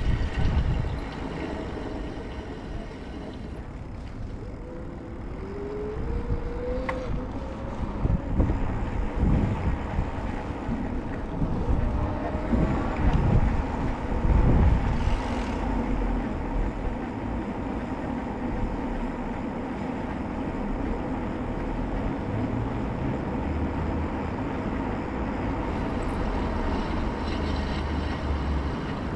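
City street traffic: vehicle engines running and passing over a continuous low rumble, with one engine note rising in pitch about six seconds in.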